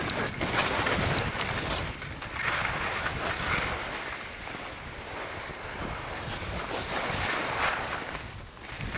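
Skis hissing and scraping through snow in a string of turns, each turn a surge of noise a second or two long, with wind noise on the microphone.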